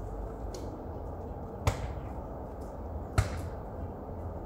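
Great tits pecking and hammering at sunflower seeds in the seed head: two loud sharp taps about a second and a half apart, with fainter taps between, over a steady low rumble.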